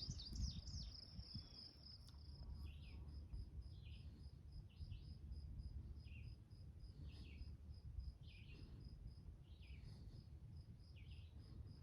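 Faint outdoor ambience of an insect calling in a steady run of short high-pitched pulses, while a bird repeats short falling chirps about once a second, over a low wind rumble.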